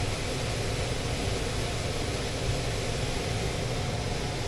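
Steady rushing hum of an HVAC system running, the blower moving air with a low drone underneath.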